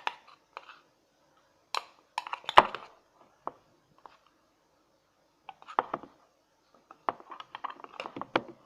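A utensil stirring thickening slime mixture in a bowl, clinking and scraping against the bowl in irregular bursts with short pauses, as the glue begins to clump after the activator is added.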